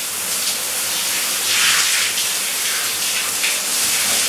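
Shower head spraying water in a steady hiss, the water splashing over a man's body and the tiled shower floor during a cold shower.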